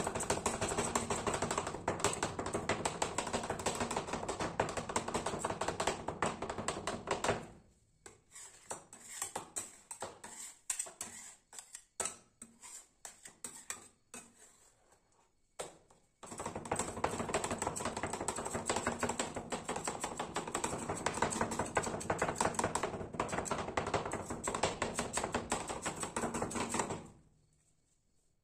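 Metal spatulas chopping rolled-ice-cream mix on a frozen steel cold plate: fast, dense tapping for the first seven seconds or so. Then scattered single taps and scrapes for several seconds, and a second long run of fast tapping that stops about a second before the end.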